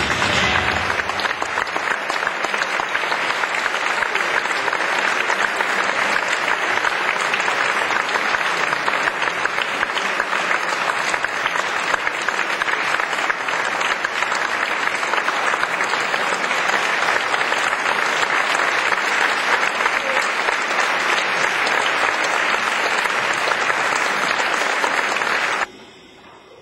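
Theatre audience applauding, steady clapping that holds level and then cuts off suddenly near the end.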